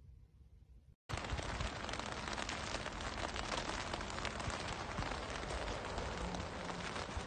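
Rain falling on wet paving: a dense, steady hiss full of small drop ticks, starting suddenly about a second in.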